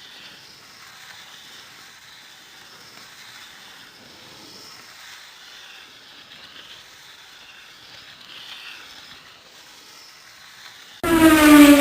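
A faint, steady hiss of noise. About eleven seconds in it is cut across by a sudden, loud, buzzy pitched sound effect with a stack of overtones.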